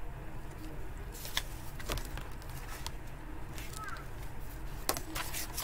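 Paperback picture-book pages being handled and turned, giving a few short paper clicks and rustles over a faint steady background.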